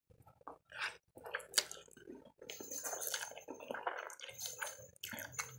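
A person slurping up a mouthful of instant noodles and chewing them: a run of irregular wet, squishy mouth sounds that starts about half a second in.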